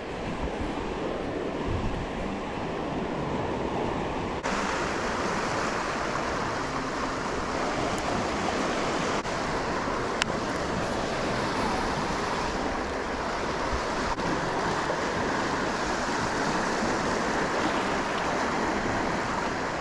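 Steady rushing noise of wind and moving water, which gets louder and brighter abruptly about four seconds in. A couple of faint clicks sound partway through.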